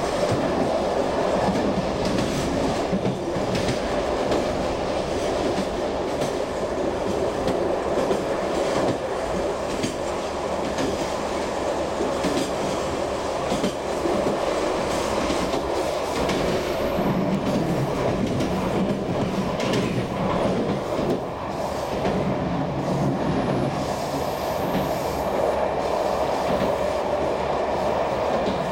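SNCF express train running along the track, heard from on board: a steady rumble of wheels on rails with irregular clacks as they pass rail joints and switches.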